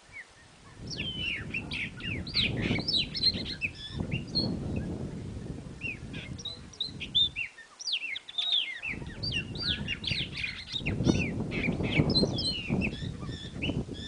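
Songbirds chirping and singing, a busy run of quick, varied notes over a low background rumble, breaking off briefly about halfway through and then starting again.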